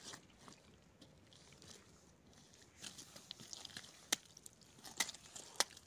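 Sharp taps of a small hammer striking stone on gravelly quarry ground: one near the start, then a handful of clicks spread from about three to five and a half seconds in.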